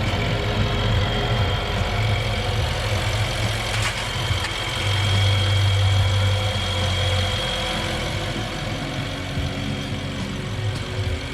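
BMW N63 4.4-litre twin-turbo V8 idling steadily just after new spark plugs and ignition coils were fitted; its low hum swells slightly for a couple of seconds in the middle.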